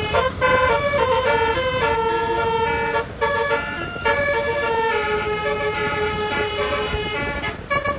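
Tour bus's basuri telolet horn playing a tune: a string of loud horn notes stepping from pitch to pitch, some quick and some held, with a brief break about three seconds in.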